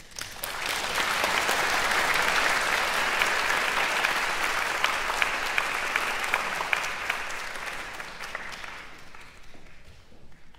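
Audience applauding, the clapping swelling within the first second, holding steady, then dying away over the last few seconds.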